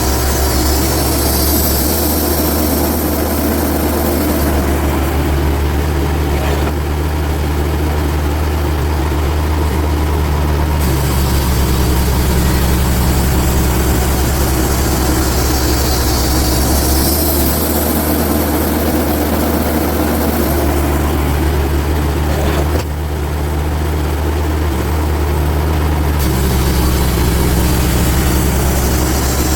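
Engine of a TimberKing portable bandsaw sawmill running steadily while milling red oak boards, with a higher hiss that swells and fades about every fifteen seconds.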